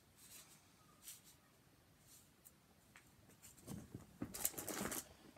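Packaging being handled, with faint soft rustles at first and then a louder burst of rustling and crinkling in the second half.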